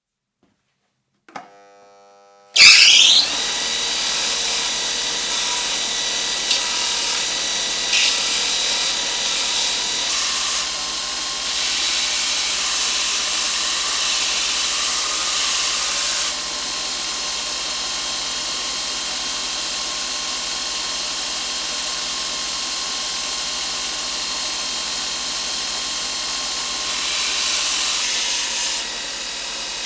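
Electric power tool starting up and then running steadily, with a steady whine running through its noise and small shifts in level now and then.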